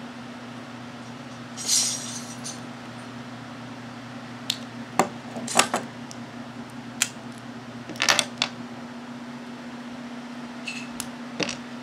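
Plastic Lego bricks clicking and clattering in the hands as they are picked through and pressed together: a soft rustle about two seconds in, then scattered sharp clicks, over a steady low hum.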